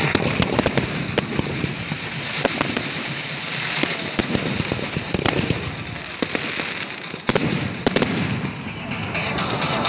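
Fireworks display: aerial shells bursting with sharp bangs at irregular intervals over a continuous crackling hiss, with a tight cluster of bangs about seven to eight seconds in.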